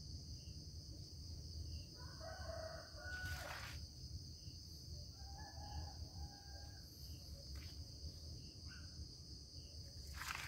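A rooster crowing faintly twice, each crow lasting about a second, over steady insect chirring. Two brief knocks, one a little after the first crow and one near the end.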